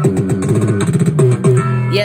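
Rap beat playing without vocals: a quick run of notes over a steady low bass note, with a ticking beat on top.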